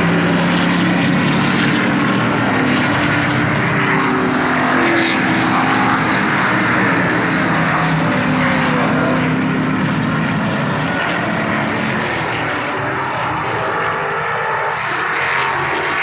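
V8 engines of Trans-Am race cars, a Dodge Challenger and a Chevrolet Camaro, running at speed as they pass, a loud steady engine drone that eases off after about twelve seconds as the cars pull away.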